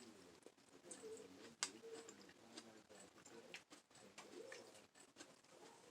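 Near silence: room tone with faint low sounds and a few soft clicks, one a little sharper about one and a half seconds in.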